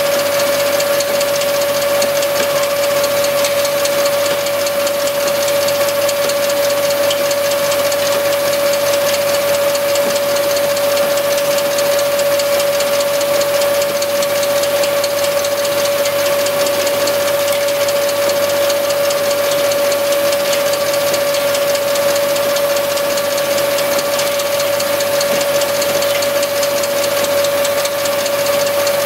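Mobile wood pellet plant running: the electric-motor-driven pellet mill and its conveyor run at a constant speed, giving a steady mechanical whine over a continuous hiss and fine rattling that does not change.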